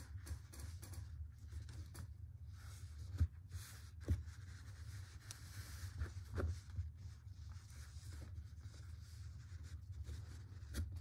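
Soft rustling and scratching of yarn and crocheted fabric being handled as a knot is tied off, with a few light taps, over a low steady hum.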